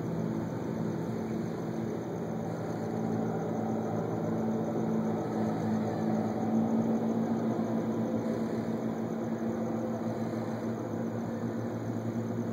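Steady low mechanical hum of running machinery, with a few held low tones, swelling a little about halfway through and easing off toward the end.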